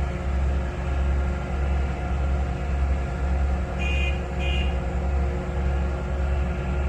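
Heavy diesel machinery running steadily at a constant engine speed. About four seconds in, two short high beeps sound close together.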